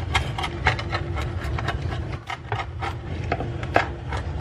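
Pizza being cut on a wooden board: a blade scraping and crunching through the crust onto the wood in short, irregular strokes, about two or three a second, the strongest near the end.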